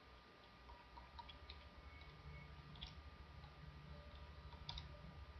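Faint computer keyboard keystrokes, a few scattered clicks over a low, steady hum.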